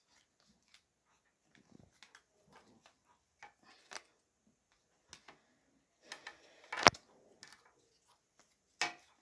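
Small clicks and scrapes of wooden popsicle sticks being handled while a push pin is pressed through them, with one sharp click about seven seconds in.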